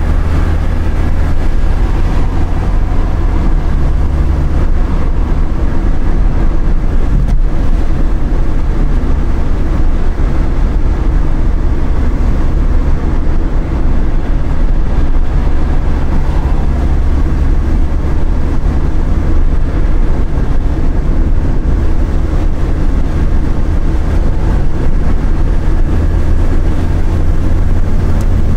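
Car driving along at road speed, heard inside its cabin: a loud, steady low rumble of engine and tyre noise.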